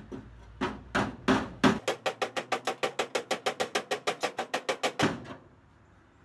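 Hammer blows on the sheet steel of a VW Beetle's front apron and spare-tire well, knocking dents out. A few separate strikes, then a quick, even run of about six or seven blows a second for some three seconds, stopping suddenly.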